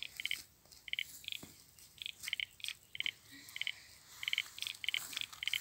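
A bird calling in short, high chirps, about a dozen notes at an irregular two or three a second.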